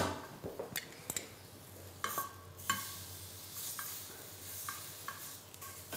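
Beef fillet steak searing in a hot pan: a steady sizzle, with several short clicks and taps as metal tongs turn the steak against the pan.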